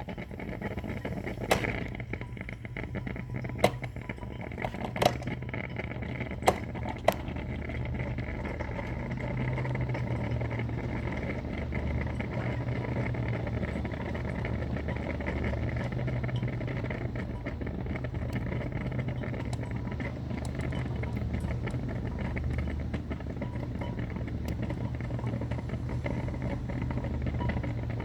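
Cuisinart Burr & Brew drip coffee maker still brewing near the end of its cycle: a steady low hum that swells and eases every few seconds. A few sharp clicks come in the first seven seconds.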